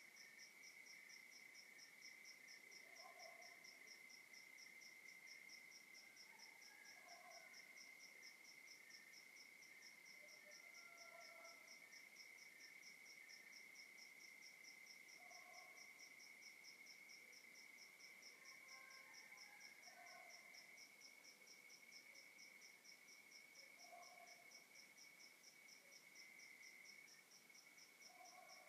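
Faint night chorus of crickets: one steady high trill under a higher chirp that pulses evenly, with short lower calls breaking in every few seconds.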